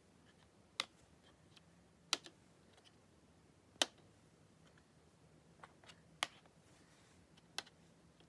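Plastic chess pieces being set down and slid on a folding chess board. There are five sharp clicks, about one every one and a half to two seconds, with a few fainter taps between them.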